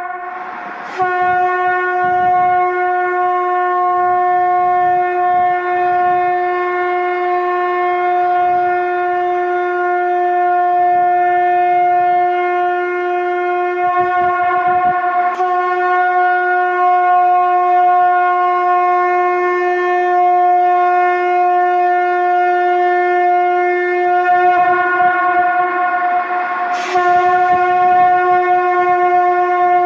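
Conch shell (shankh) blown in long, steady blasts on a single held pitch. A fresh blast starts sharply about a second in, another around halfway, and one near the end.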